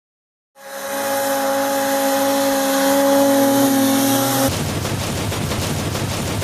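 Ski-Doo snowmobile engine under hard throttle, starting about half a second in and holding a steady pitch. About two-thirds of the way through it turns into a fast, rattling pulse.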